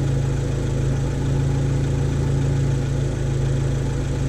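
Alfa Romeo MiTo engine idling steadily, a constant low hum.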